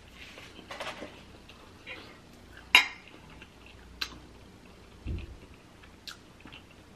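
Metal fork clinking and scraping against a plate of rice and noodles: several short sharp clinks, the loudest about three seconds in, with a low soft thump around five seconds in.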